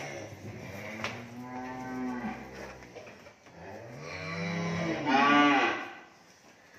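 Cattle mooing in a series of calls: one fades out just after the start, another follows a second later, and a longer, louder one peaks near the end.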